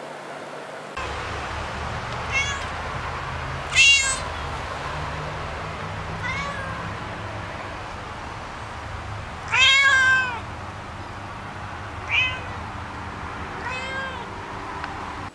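Domestic cat meowing again and again: about six meows a couple of seconds apart, the loudest near four and ten seconds in, the one near ten seconds drawn out. A steady low hum runs underneath.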